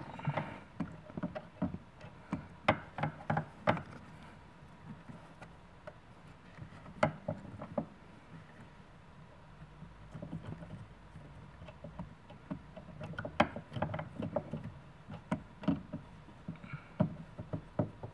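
Irregular clicks and knocks of a replacement power-seat motor being handled and fitted into the seat frame by hand. The knocks come in clusters near the start and again near the end, with a quieter stretch between.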